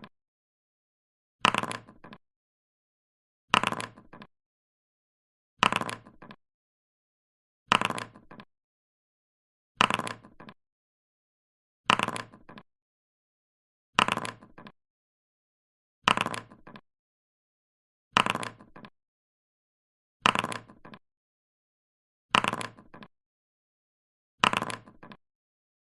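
Dice rolling: a quick clatter of dice hitting and tumbling to a stop, repeated about every two seconds, about a dozen times.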